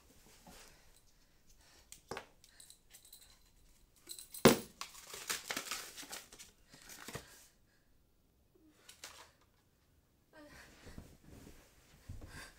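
Close handling noises: small clicks, one sharp knock about four and a half seconds in, then rustling and crinkling that stops for a moment and comes back near the end.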